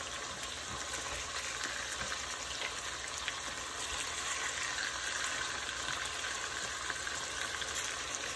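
Beef meatballs sizzling steadily in hot oil as they sear in a pot, while a wooden spoon turns them.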